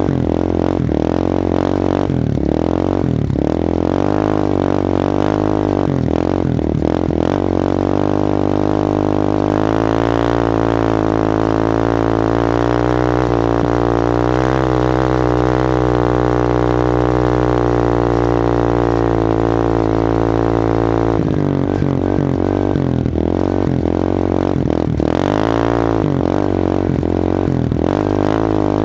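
Yamaha Warrior 350 ATV's single-cylinder four-stroke engine running under load while towing a rider on a rope, its pitch rising and falling, then holding steady for about ten seconds in the middle before varying again.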